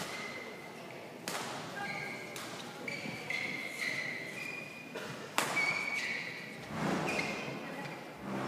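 Sports-hall sounds between rallies: short high squeaks of shoes on the badminton court mat and a few sharp clicks of rackets hitting shuttlecocks, the loudest about five seconds in, each with a short echo in the hall.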